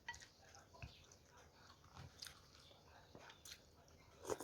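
Faint close-up chewing of Thai suki soup, soft wet mouth clicks and smacks scattered through, with a louder cluster of smacks near the end.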